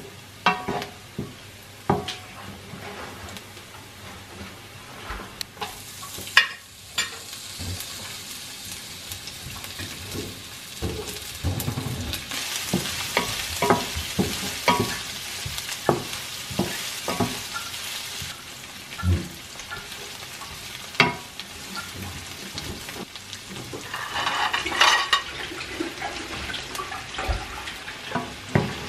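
Food frying in a pan, the sizzle swelling in the middle and again near the end, with scattered clicks and knocks of a utensil against the pan.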